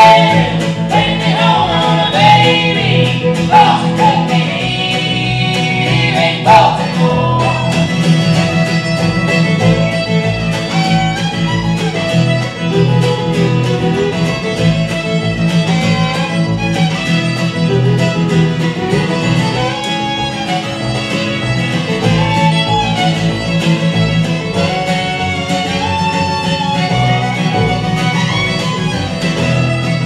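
An acoustic string band of fiddle, acoustic guitar and upright bass playing an Americana song. Voices sing in harmony for the first few seconds, then the band plays an instrumental passage with the fiddle prominent.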